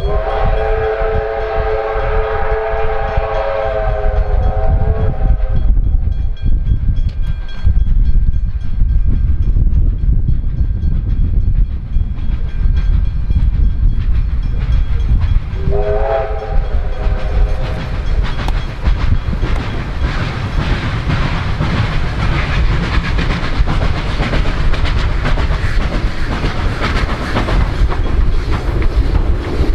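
Victorian Railways R class 4-6-4 steam locomotive R761 running at speed: its whistle sounds a long chord of several tones for about five seconds at the start, then a shorter blast about 16 seconds in, over the steady rumble of the train. From about 18 seconds on a louder rushing clatter builds as the locomotive and its carriages pass close by.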